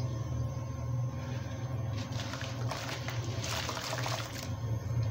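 Gritty cement crumbled by hand into a bucket of water, splashing and trickling in two bursts, about two seconds and three and a half seconds in, over a steady low hum.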